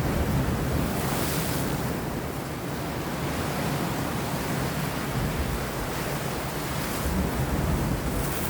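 Sea waves washing and breaking against rocks, a continuous rushing surf with wind, swelling into a brighter splash about a second in and again near the end.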